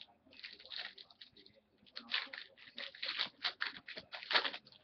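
Foil wrapper of a hockey card pack being torn open and crinkled by hand: irregular crackling rustles, loudest near the end.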